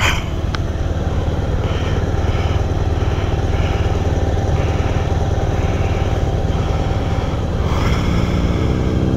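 Motorcycle engine idling steadily while the bike stands parked.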